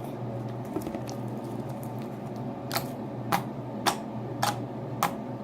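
Homemade slime being stretched and squeezed in the hands, giving a series of sharp clicks, about five in a row roughly half a second apart in the second half.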